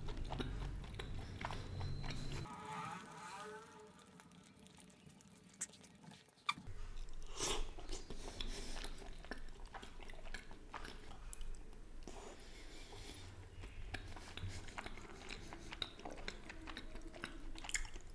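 Close-miked chewing of a soft jaggery rasgulla: quiet wet mouth sounds and small clicks, with a near-silent pause about three seconds in.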